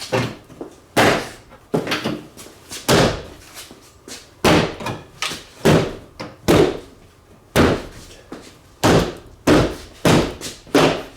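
Plastic liftgate trim panel of a Ford Freestar minivan being struck again and again, about a dozen heavy blows at irregular spacing, to snap its spring clips into place.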